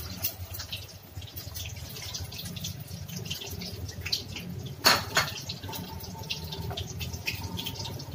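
Wooden spatula stirring thin, watery curry in a nonstick wok: liquid sloshing and dripping with scattered small clicks, and one sharper knock about five seconds in.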